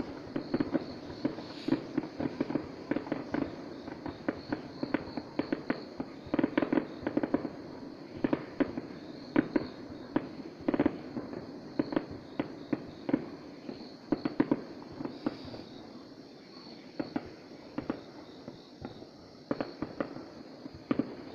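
New Year's Eve fireworks going off: a dense, irregular run of pops and bangs, thinning out somewhat near the end.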